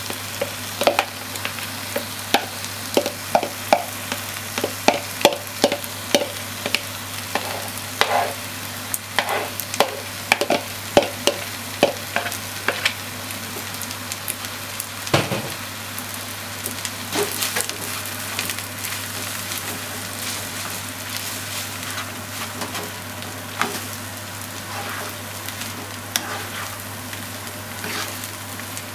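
Fried rice sizzling in a nonstick frying pan as a spatula presses and stirs it: frequent taps and scrapes of the spatula on the pan over the first half, one heavier knock about halfway, then a mostly steady sizzle with occasional clicks.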